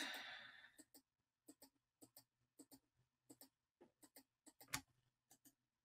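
Faint computer mouse button clicks, about ten in a row at roughly half-second intervals, each a quick press-and-release double click, over a faint low hum. These are shift-clicks selecting objects one after another.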